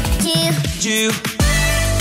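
Background music with melody and bass; the bass drops away a little past a second in, then comes back in.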